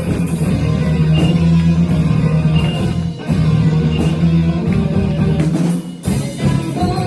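A rock band playing live: electric guitar, bass and drum kit in an instrumental passage, with a brief break near the end before the band comes back in.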